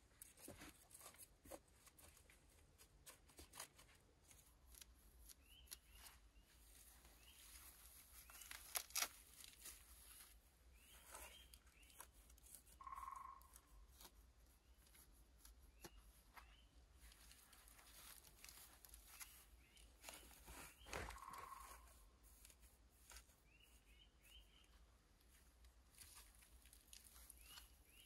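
A knife blade cutting and tearing through a mat of moss, giving quiet scattered crackles and scrapes, with a couple of louder tears about nine and twenty-one seconds in.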